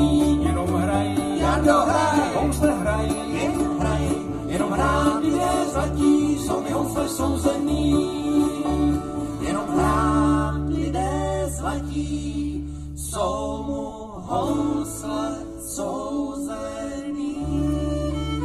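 Live bluegrass band playing an instrumental passage: picked banjo, strummed acoustic guitars, mandolin and bass. About halfway through, the bass moves from short picked notes to long held notes.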